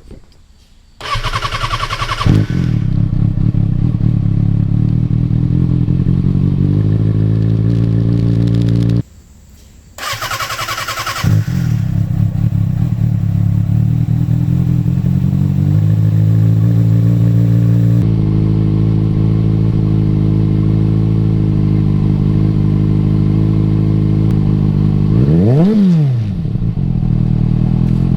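2007 Kawasaki ZX6R's inline-four, on its stock catalytic-converter header with a Two Brothers slip-on, cold-started: the starter cranks about a second in and the engine catches into a steady fast idle. It goes quiet for about a second near the middle, is cranked and started again, idles steadily, and is blipped twice near the end.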